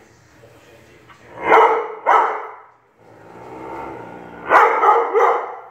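Siberian husky barking: two barks about a second and a half in, a quieter drawn-out low sound in the middle, then three quick barks near the end.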